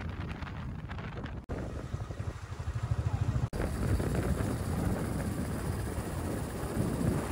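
Motorcycle engine running under way with a low, pulsing rumble, mixed with wind buffeting the microphone. The sound breaks off abruptly twice, about one and a half and three and a half seconds in.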